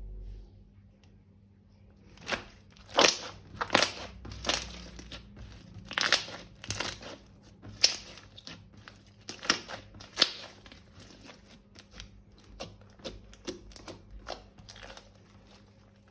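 Slime and plastic being handled: an irregular run of short crinkling, crackling squishes, starting about two seconds in and thinning out towards the end.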